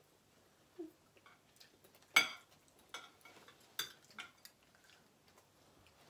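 Forks and spoons clinking and tapping against plates as people eat, in a few scattered clicks; the loudest comes about two seconds in.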